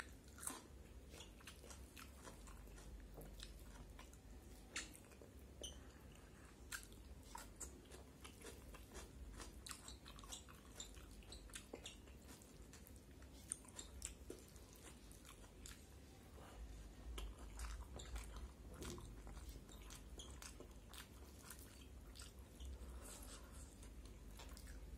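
Quiet close-up eating sounds of a person chewing rice with bamboo shoots and Malabar spinach: irregular wet smacks and small clicks of the mouth, a few of them sharper, over a faint low hum.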